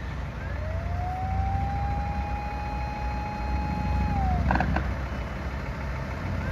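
Japanese fire engine siren wailing: one long tone that winds up, holds for about three seconds, winds down, then starts to wind up again near the end, over the fire engine's running engine.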